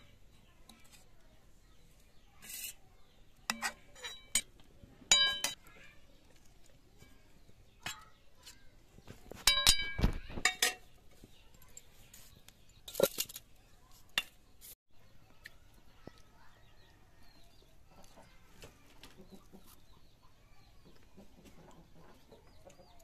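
Steel serving spoon clinking against a steel wok and plate as curry is dished out, a few scattered clinks and scrapes, with hens clucking now and then.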